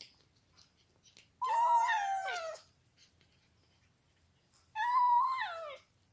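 Kitten meowing twice, two long calls about three seconds apart, each sliding down in pitch at the end.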